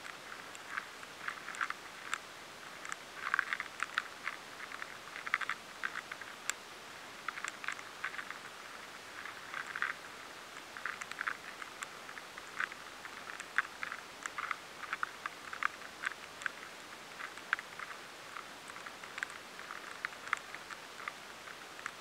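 Rice weevil larvae gnawing inside soft wheat grains, heard through a high-sensitivity pickup: irregular clusters of tiny scraping clicks over a steady hiss.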